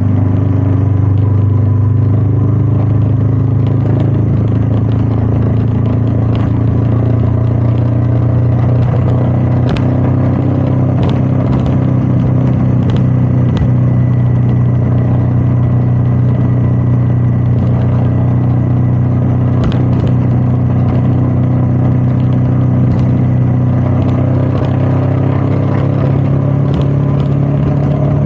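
Royal Enfield Meteor 350's single-cylinder engine running steadily under way, its note slowly rising as engine speed creeps up, with wind noise and a few short sharp ticks.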